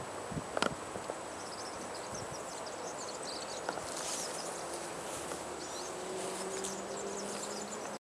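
Outdoor ambience in overgrown grassland: scattered faint high chirping from insects over a steady background hiss, with a light knock just under a second in. A faint steady low hum comes in about three seconds in.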